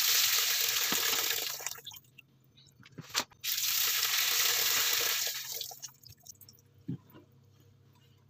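Olive-curing brine pouring from a large glass jar through a metal mesh strainer into a sink, in two pours of about two seconds each, with a short knock between them; the old bitter brine is being drained off the curing green olives. A few faint small clicks follow near the end.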